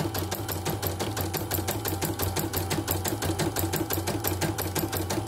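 CNY embroidery machine stitching a design: a fast, even clatter of needle strokes, about eight a second, over a steady motor hum. It is a test stitch-out after servicing, running smoothly without thread breaks.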